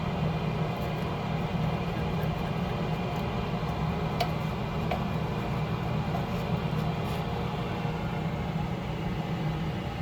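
Steady low mechanical hum, with two faint light ticks a little over four seconds in.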